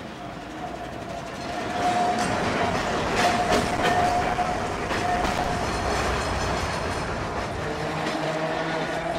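Open electric tram (Rio's Santa Teresa bonde) running on its rails, with a steady high whine and a few clanks. It gets louder about two seconds in.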